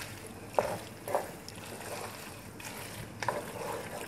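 A spatula stirring cooked macaroni in a metal pot: a wet scraping and mixing sound with three sharp knocks of the utensil against the pot.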